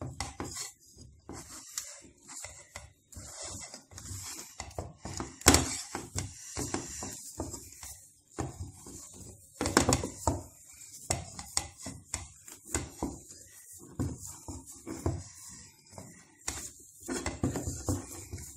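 Wooden spoon scraping and knocking against an enamel saucepan as thick carrot fufu is turned and mashed, in irregular strokes, with sharper knocks about five and a half seconds in and again near ten seconds.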